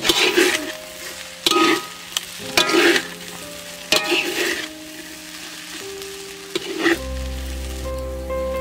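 Metal spatula stir-frying octopus fried rice in a steel wok: about five sizzling scrape-and-toss strokes a second or so apart. About seven seconds in the stirring stops and a steady low hum begins.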